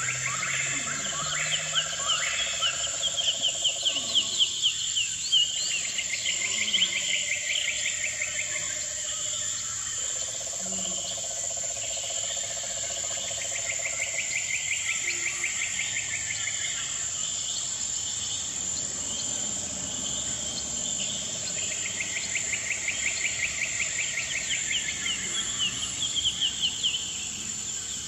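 Insects trilling: rapid pulsed trills come in bouts a few seconds long, over a steady background chorus, as in a jungle ambience recording.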